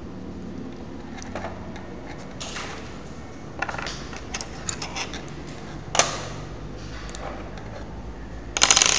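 Small plastic construction-kit parts clicking and clacking as they are handled and fitted together by hand: scattered light clicks, a sharp click about six seconds in, and a quick rattle of clicks near the end, the loudest.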